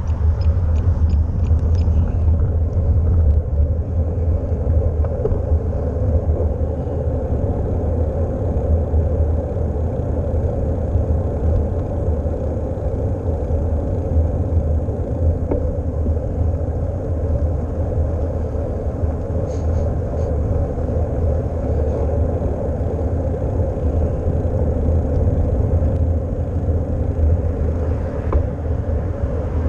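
Steady wind rumble on a bicycle-mounted action camera's microphone while riding, with road and tyre noise underneath. A few faint ticks come in the first two seconds.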